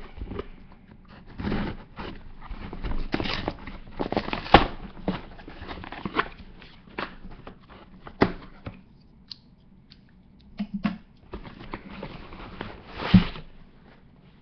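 Cardboard shipping box being opened and handled: irregular rustling, scraping and tearing of the cardboard and its packing, with a few sharp knocks, the loudest about four and a half seconds in and again near the end.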